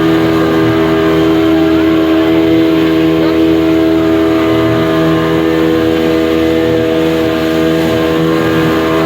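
Motorboat engine running at a steady speed, a loud even drone with several fixed tones.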